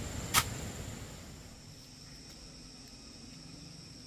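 Insects trilling steadily in high, thin tones, with a single sharp click about half a second in.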